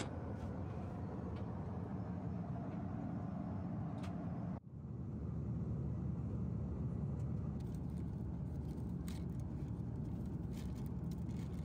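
Steady in-flight cabin noise of an Airbus A330 at cruise, an even rumble and rush. It drops out for an instant about four and a half seconds in, then carries on the same, with a few faint clicks here and there.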